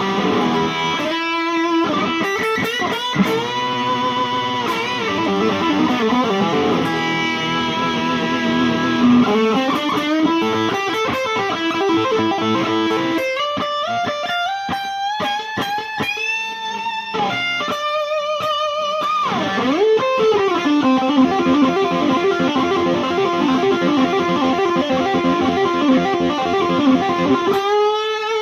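IYV ILP 400 electric guitar playing lead lines, with string bends and vibrato. Several times the pitch dips sharply and swings back up.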